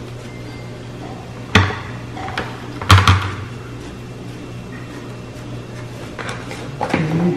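Two sharp knocks about a second and a half apart, with a brief clatter near the end, over a steady low hum.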